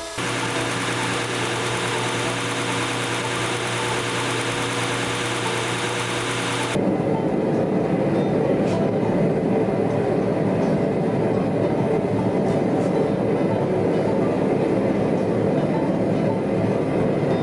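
Shop power tool running steadily. About seven seconds in, the sound changes abruptly to a louder, rougher noise with less treble.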